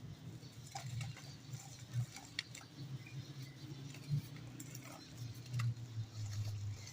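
Dry dirt lumps crumbling and crunching by hand: scattered sharp crackles and crunches over a low steady hum.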